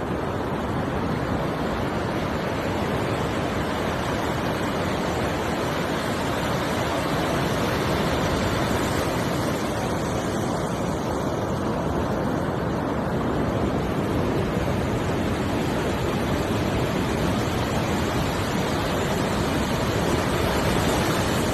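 Surf washing onto a beach shore: a steady rushing noise that swells gently every few seconds.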